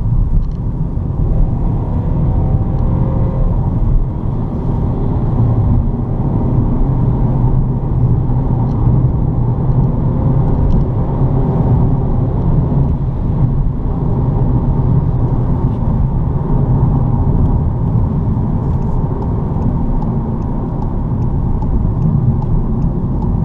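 Inside the cabin of a moving 2018 Volkswagen Golf 1.0 TSI automatic: steady road and tyre rumble mixed with the drone of its three-cylinder turbo engine, with no sudden events.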